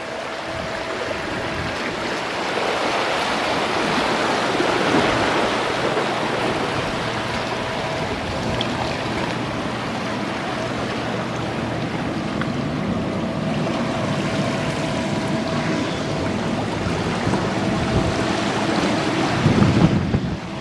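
Ocean surf washing over the rocky shoreline, a steady rushing that swells and eases slowly, with some wind on the microphone.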